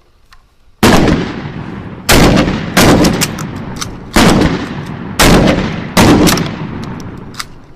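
Six loud gunshots at uneven spacing, each followed by a long echoing tail, with a few faint clicks near the end.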